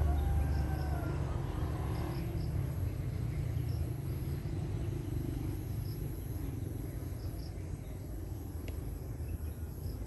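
Outdoor rural ambience dominated by a low wind rumble on the phone's microphone that slowly eases off, with faint high insect chirps repeating every second or two.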